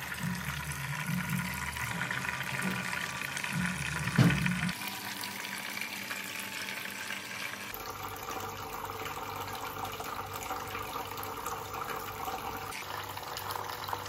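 Water trickling and splashing down a small tabletop rock fountain into its basin, a steady running-water sound that shifts in tone about five and again eight seconds in. A short thump about four seconds in.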